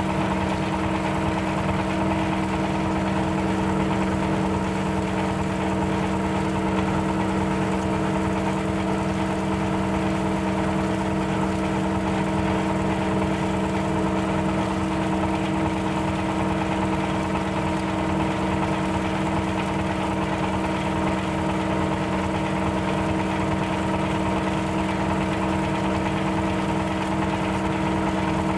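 Plastic shredder driven by an 8 hp diesel engine, running at a constant speed with a steady hum that does not change.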